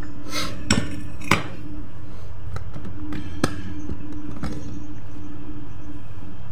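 A few light clinks of metal scooter CVT parts and tools being handled on a concrete floor, over a steady low background hum.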